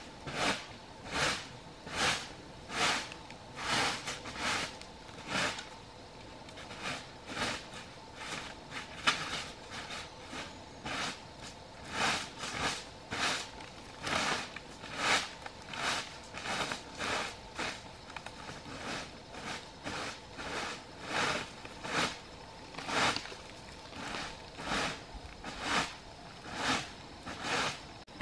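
A digging tool chopping into and scraping loose soil in a steady rhythm, about one stroke a second.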